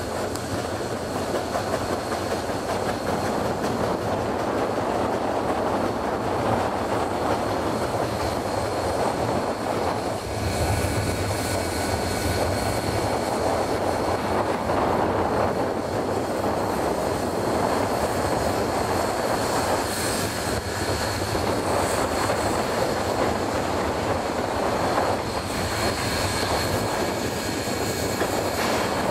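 Steam locomotive, the Bel-Del's 2-8-2 Mikado #142, working along with its passenger cars, heard from a vehicle driving alongside. It is a steady, even rumble and rush mixed with the vehicle's own road noise, with no clear beat.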